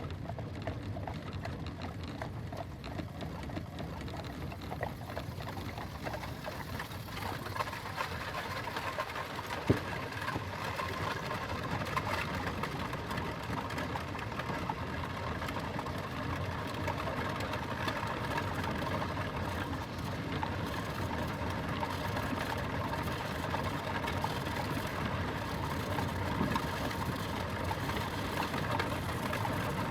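Horse-drawn carriage rolling along: a steady, dense rattling clatter of wheels and fittings, with one sharp knock about ten seconds in.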